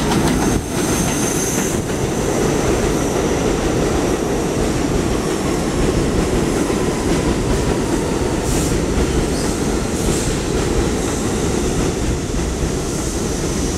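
NYC Subway R62A 7 train running along the platform, steel wheels rumbling steadily on the rails with some clickety-clack. A thin high wheel squeal comes in the first two seconds, and two short high squeaks come about 8 and 10 seconds in.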